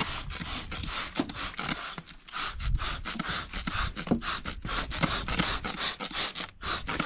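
Hand-held trigger spray bottle pumped repeatedly, each pull a short hiss of water mist, in an irregular run of quick sprays.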